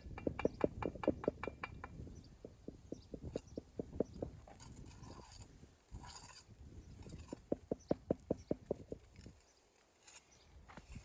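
Rapid light knocks of a hand tool tapping on stone, about seven a second, in two quick runs with scattered single knocks between and a brief scrape in the middle.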